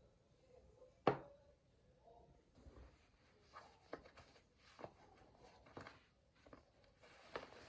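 A sharp knock about a second in, then soft scattered clicks and taps roughly once a second: small objects being handled in a small room.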